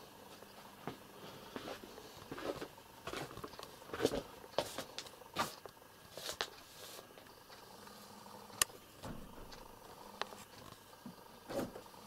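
Scattered soft knocks, clicks and rustling from handling and movement close by, with one sharp click about eight and a half seconds in.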